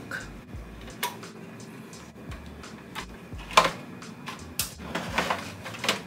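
Scattered clicks and metal knocks of a screwdriver backing out the power supply's rear screws, then the power supply being worked loose from the steel PC case; the sharpest knock comes a little past the middle, with a few quick bumps near the end.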